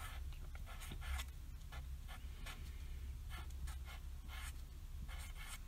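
Blue Sharpie felt-tip marker writing on paper: a string of short, scratchy strokes forming letters, over a low steady hum.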